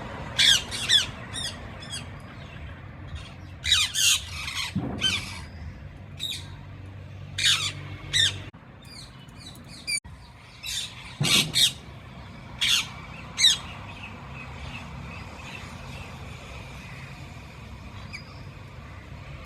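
Parrot squawking: a dozen or so sharp, loud calls in short clusters, some sliding down in pitch. A low steady hum sits underneath and stops about eight and a half seconds in.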